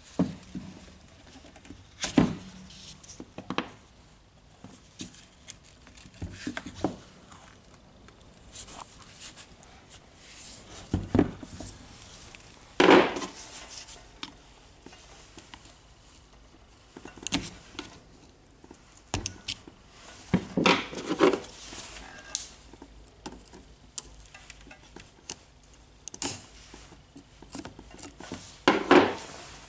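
Irregular metal clicks, scrapes and knocks of hand tools working inside the greasy chuck bit holder of a DeWalt DCH133 rotary hammer: a flat screwdriver scraping out old grease, then pliers gripping parts inside the holder near the end.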